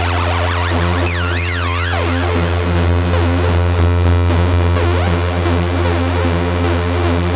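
Behringer Odyssey analog synthesizer playing a steady low bass tone under a repeating pattern of notes, with a wobbling, pitch-modulated high sweep about a second in.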